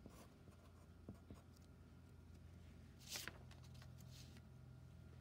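Faint scratching of a pencil writing on paper in a few short strokes, the clearest about three seconds in, over a low steady hum.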